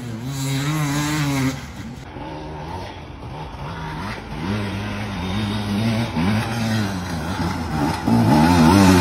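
Enduro dirt-bike engine revving up and down in repeated bursts of throttle, getting louder near the end as the bike comes closer.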